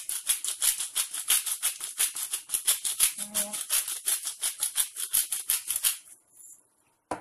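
Handheld salt mill grinding coarse sea salt: a fast, dry, crisp rattle of about seven strokes a second that stops about six seconds in.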